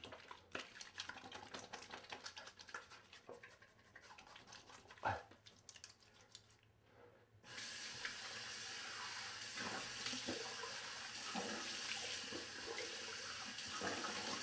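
Faint rubbing of hands and face scrub on skin, then about halfway through a bathroom tap turns on and water runs steadily into the sink, with splashing as the face is rinsed.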